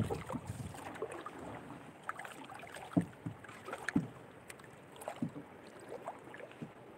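Water splashing and lapping against a small outrigger boat, with a few sharp knocks on the boat, the loudest about three and four seconds in.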